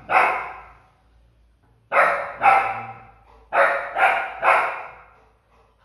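A Labrador retriever puppy barking: six sharp barks, one at the start, a pair about two seconds in, then three more about half a second apart. The barking is a puppy's demand to be lifted up onto the bed.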